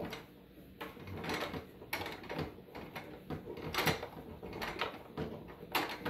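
Irregular clicks and knocks of hard plastic being handled as screws are tightened into a refrigerator ice maker's plastic ice bin. The sharpest knocks come a little before the 4-second mark and just before the end.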